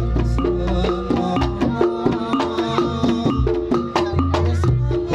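Reog Ponorogo gamelan music: tuned gong-chimes play a busy pattern of short notes over deep gong and drum strokes.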